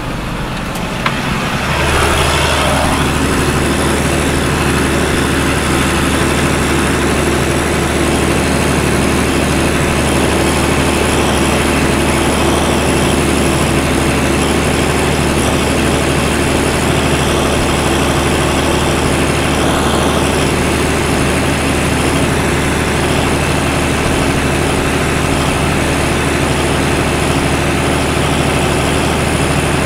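Case CS 150 tractor's diesel engine running steadily at working speed, heard from inside the cab. The sound steps up in loudness about two seconds in, then holds an even, deep hum.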